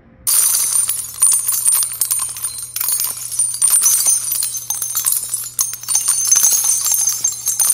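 Jingling, bell-like sound effect that starts abruptly, made of dense rapid clicks and jangles over a steady low hum.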